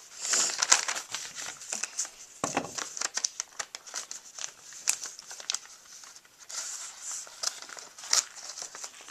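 A mailing package crinkling and rustling as it is handled and turned over, with many sharp crackles.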